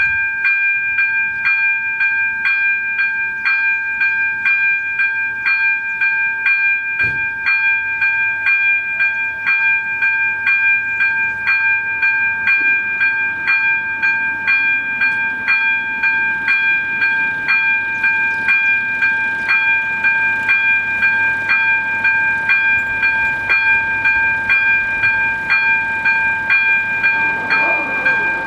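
AŽD ZV-02 electric level-crossing bell ringing loudly, its gong struck in a steady rhythm of about one and a half strokes a second: the warning that a train is approaching and the barriers are about to come down.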